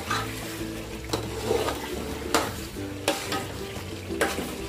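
Long metal ladle stirring thick chicken masala as it sizzles and fries on high heat in a heavy-bottomed metal pot. The ladle knocks or scrapes against the pot about four times.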